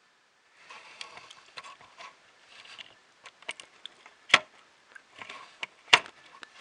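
Small electronic parts being handled: scattered rustling with a run of sharp clicks, the two loudest about four and six seconds in.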